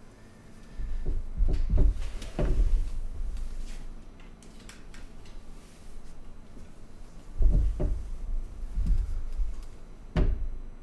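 Dull thumps and knocks of handling as a corded handheld microphone is taken up and moved about, and the player shifts on the wooden bench. A cluster of knocks comes early on, another past the middle, and one sharp knock comes near the end.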